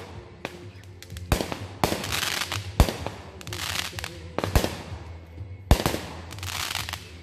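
Aerial fireworks bursting overhead: several sharp bangs spread over the seconds, some followed by a crackling, sizzling hiss of burning stars.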